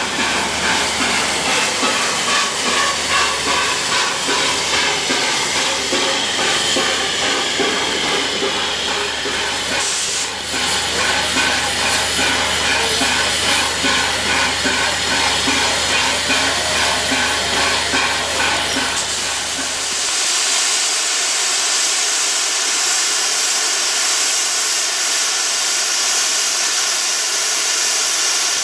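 LNER Peppercorn A1 Pacific steam locomotive No. 60163 Tornado pulling away, with rhythmic exhaust beats and hissing steam. About two-thirds of the way through, the sound changes abruptly to a steady, loud hiss of escaping steam.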